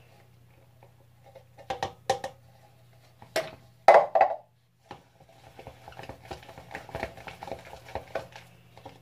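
A utensil clinking and scraping against a bowl as a shampoo and cornstarch slime mixture is stirred. There are a few sharp knocks, the loudest about four seconds in, then a quick run of small scrapes and clicks.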